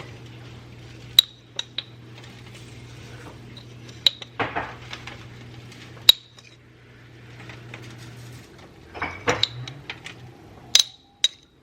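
Kitchenware being handled while a chicken is seasoned: sharp clinks of glass and metal that ring briefly, scattered through, with two short scraping rustles about four and nine seconds in. A low steady hum runs underneath and stops about eight and a half seconds in.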